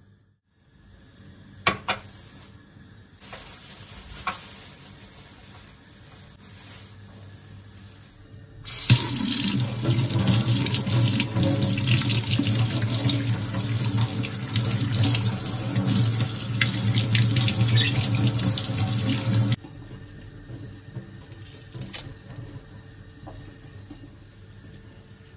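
Water running from a tap into a sink for about ten seconds, starting and stopping abruptly; a few light clicks and knocks before and after.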